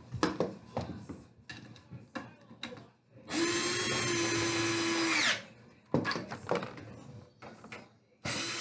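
Power drill driving screws during furniture assembly: a steady run of about two seconds that winds down in pitch as it stops, with clicks and knocks of handling before and after, and another run starting near the end.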